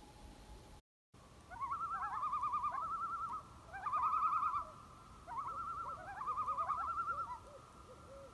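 Common loon tremolo calls: fast quavering, wavering trills in four bouts, starting after a brief silence about a second in.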